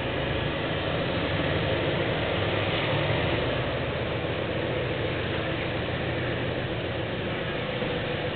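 General Electric U11-B diesel locomotive's engine running with a steady low drone. The drone comes up in level at the outset and then holds steady, with some rail and train noise.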